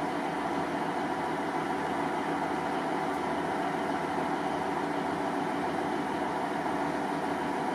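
ScotRail diesel multiple unit standing at the platform, its underfloor diesel engines idling steadily.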